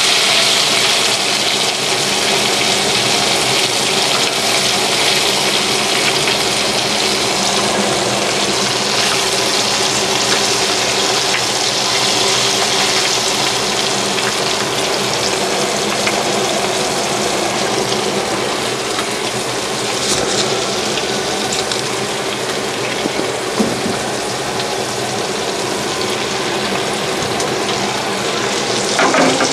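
Nile perch fillets frying in hot oil in a pan: a steady, dense sizzle of bubbling oil. The fillets are in the last stage of frying, being browned crisp.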